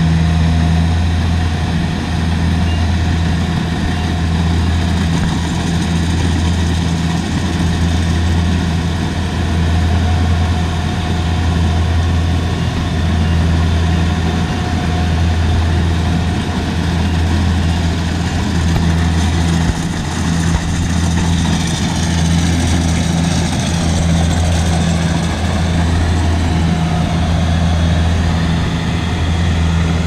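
Compact tracked rice combine harvester running steadily while it cuts and threshes rice, a loud low engine hum with the machinery's whir over it.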